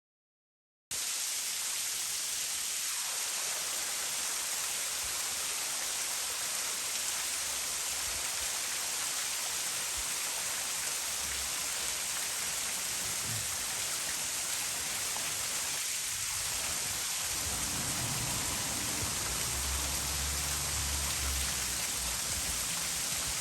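About 60-foot canyon waterfall pouring steadily: an even rushing hiss of falling water that starts abruptly about a second in and cuts off suddenly at the end, with some low rumbling in the last few seconds.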